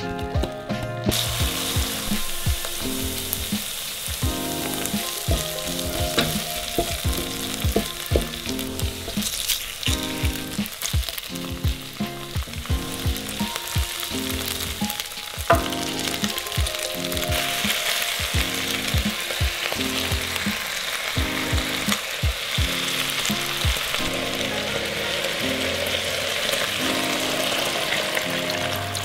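Sliced onions and chicken legs frying in oil in a pan: a steady sizzle that starts about a second in, as the onions hit the pan, and grows louder in the second half. Background music with a beat plays underneath, and a single sharp tap is heard about halfway through.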